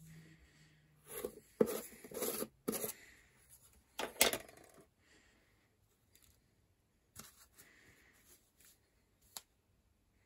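A metal tin's lid being worked off by hand, with scraping and clicking in a few bursts over the first five seconds. A few lighter clicks and taps of the tin being handled follow.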